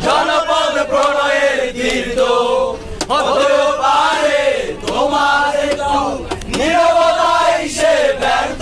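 A group of young men singing together loudly in unison, in held phrases about a second long with brief breaths between them, and a few sharp clicks among the phrases.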